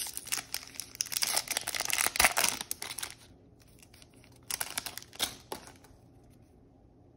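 Trading-card pack wrapper crinkling and tearing as it is opened by hand: a dense run of crackles for about three seconds, then a shorter burst about five seconds in.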